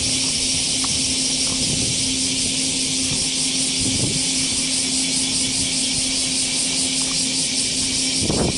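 Steady outdoor ambience at a creek bank: an even high hiss with a low steady hum underneath, and a soft knock near the end.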